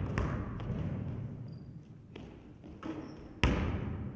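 A basketball bouncing on a sports hall floor: one hard bounce right at the start and another loud one about three and a half seconds in, each ringing on in the echo of the large empty hall.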